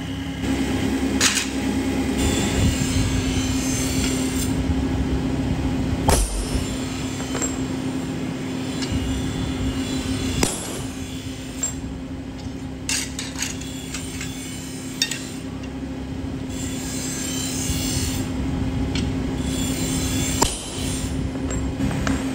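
A workshop machine motor humming steadily, with a handful of sharp metal knocks and clinks scattered through it.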